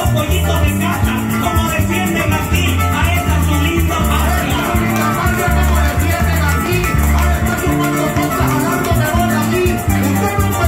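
Live llanero (joropo) band playing: llanera harp runs over an electric bass line, with maracas shaking steadily.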